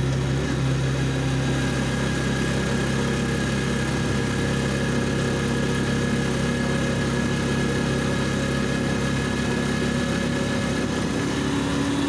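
Vehicle engine running steadily while driving along a road, heard from inside the vehicle, with a low hum and a faint steady whine above it.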